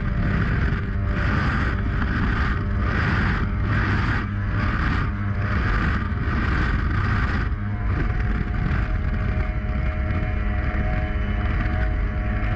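Mercury 2.0-litre V6 two-stroke outboard on a Piranha Espada sport boat running flat out at about 100 km/h: a steady, loud engine drone with rushing wind and water. For the first half a rhythmic whoosh comes a little more than once a second, then it fades out and the run sounds smoother.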